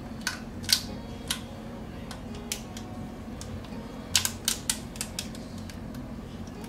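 Plastic clicks and crinkles from a one-gallon zip-top bag as its zipper seal is pinched shut along the track, with a quick cluster of clicks about four seconds in. A low steady hum runs underneath.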